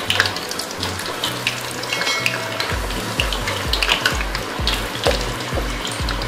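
Potato pieces deep-frying in hot ghee in an iron karahi: a steady bubbling sizzle with many small crackles and pops.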